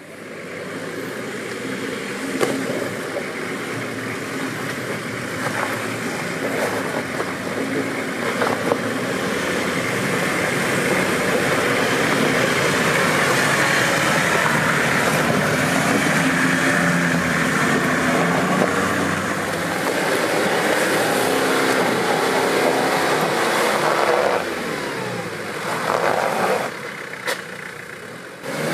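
Off-road 4x4's engine working under load and revving, with a few sharp knocks in the first several seconds; it builds to its loudest around the middle and falls away near the end.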